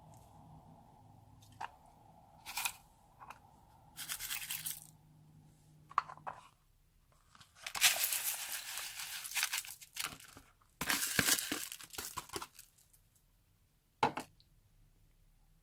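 Old slime being pulled and torn apart by hand, giving three bursts of crackling, tearing sound, the longest about two seconds, with a few sharp clicks and pops between them.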